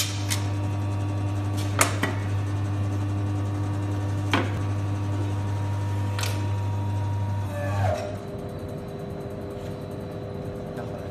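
License-plate hot embossing machine humming steadily while its metal plate tray is handled, with a few sharp knocks. About eight seconds in the low hum dies away with a falling whine, leaving a quieter, higher steady tone.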